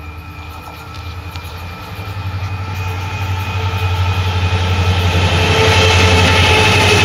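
Indian Railways WDG-4 and WDG-4D diesel locomotives, EMD two-stroke engines, working in multiple as they approach. Their deep engine rumble grows steadily louder, with steady higher tones over it.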